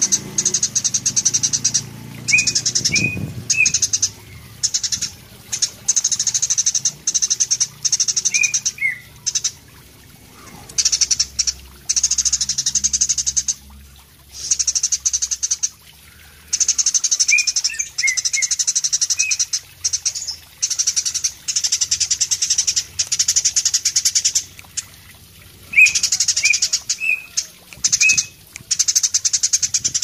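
Eurasian tree sparrow in full song: repeated bursts, each a second or two long, of rapid, high, buzzy chattering broken by short pauses, with a few short, clearer chirps here and there.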